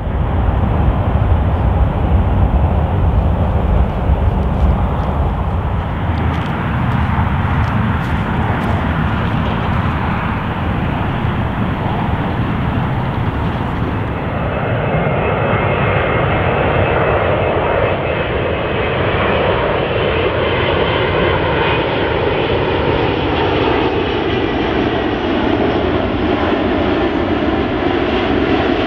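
Airbus A380-800's four Engine Alliance GP7200 jet engines on final approach, a steady jet roar with heavy low rumble. About halfway a higher whine joins, with tones that slowly bend in pitch as the aircraft comes close.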